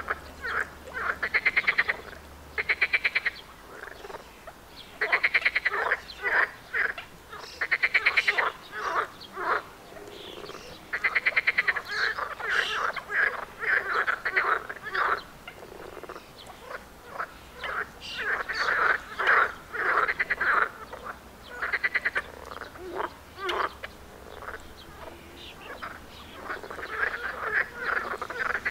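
A chorus of frogs croaking: many overlapping calls of about half a second to a second, each a rapid train of pulses, repeating throughout.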